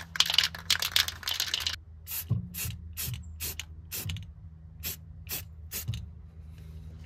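Aerosol can of primer being shaken, its mixing ball clacking fast for about two seconds, then slower single clacks until about six seconds in. A steady low hum runs underneath.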